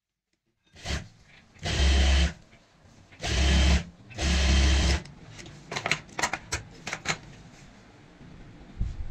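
Juki industrial sewing machine stitching a fabric binding strip in short runs: a brief start, then three runs of about half a second to a second each. After these comes a series of light clicks as the work is handled.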